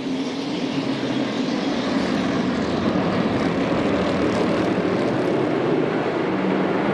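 A field of NASCAR Cup Series stock cars racing together, their V8 engines a dense, steady drone that grows a little louder over the first couple of seconds as the race gets underway.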